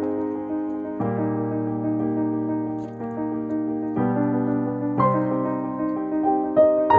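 Background piano music: slow chords struck one after another and left to ring.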